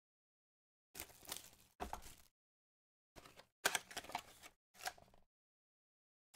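Foil wrapper of a baseball card pack crinkling and tearing as it is opened and handled, in about five short rustling bursts.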